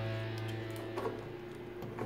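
Background guitar music's held chord fading out, with a brief soft clack of plastic toy parts being handled about a second in.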